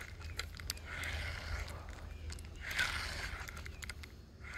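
Fishing rod and reel being handled as a jig is worked: a run of light clicks and ticks with two soft scraping whirs, about a second in and again near three seconds in.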